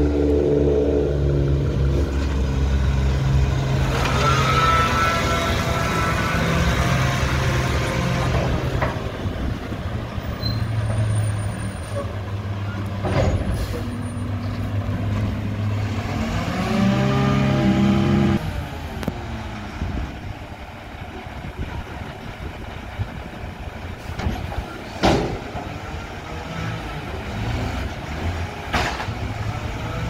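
Diesel engine of a Mack McNeilus front-loader garbage truck running loud as the truck drives up and manoeuvres, with a rising whine in the first several seconds and another swell a little past the middle, then dropping to a quieter idle. Short sharp air-brake hisses near the middle and near the end.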